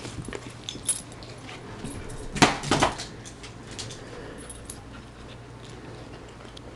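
A corgi playing fetch with a toy: scattered light clicks and rustling, with two loud sharp sounds close together about two and a half seconds in.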